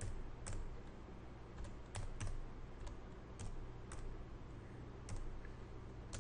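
Computer keyboard typing: about a dozen separate key presses at an unhurried, uneven pace.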